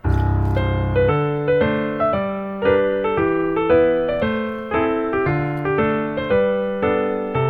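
Background piano music: a gentle melody of evenly paced notes, each struck and fading.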